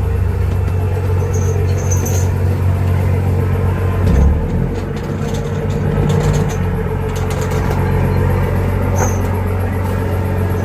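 Fishing trawler's diesel engine running steadily with a low drone and a steady hum above it, and a brief thump about four seconds in.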